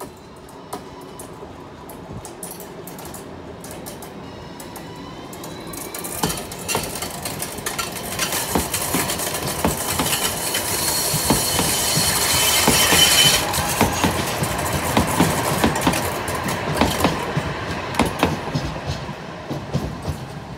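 Electric tram-train (Alstom Citadis Dualis) passing close by. Its motor whine rises in pitch as it approaches, then its wheels click over the rail joints, with a high hiss loudest about halfway through, and the sound eases off as it moves away.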